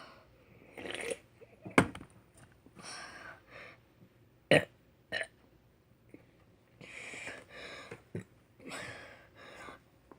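A boy burping on purpose, over and over: several short, loud burps, about four in all, with heavy, breathy gasps in between.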